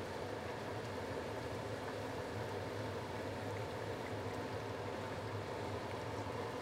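Braising sauce simmering in a wok over a lit gas burner: a steady, even hiss.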